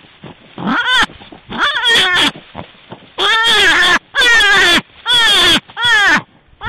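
European brown hare squealing: a series of about seven loud, wailing calls, roughly one a second. Each call rises briefly and then falls in pitch. A few soft low grunts come before the first call.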